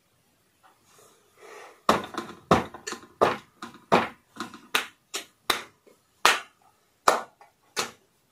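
Hand claps and slaps beating out an uneven rhythm: about a dozen sharp, loud hits starting about two seconds in, spaced roughly half a second to a second apart.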